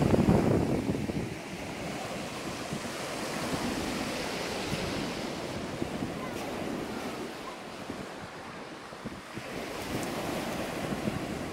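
Small sea waves breaking and washing up a pebble beach, a steady surf noise. Wind buffets the microphone with a loud low rumble in the first second or so, then eases.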